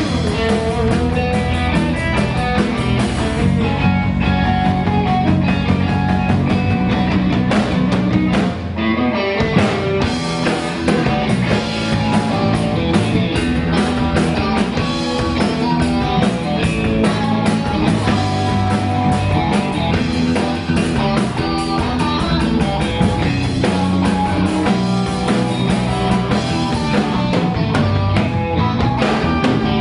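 Blues band playing live, guitar to the fore over a drum kit.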